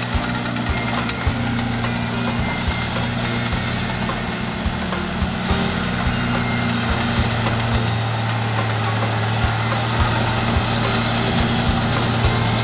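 Diesel engines of a crawler loader and a Bobcat S300 skid-steer loader running steadily as they push and spread dirt, with irregular knocks and clanks throughout.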